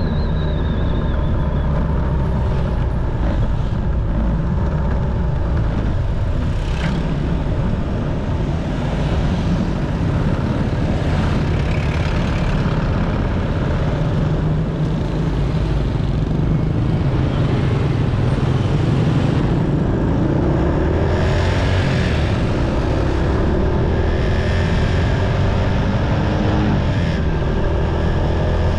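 Motorcycle engine running while riding along a town street, under steady road noise, with other traffic around. The engine pitch rises a few times in the last third as it accelerates.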